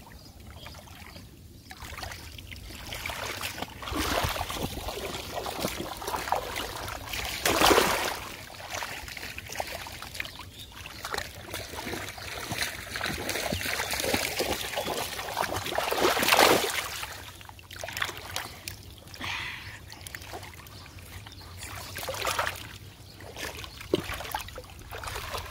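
Shallow muddy water splashing and trickling as fish are caught by hand, with irregular sloshes throughout. Two louder splashes come about a third of the way in and again about two-thirds in.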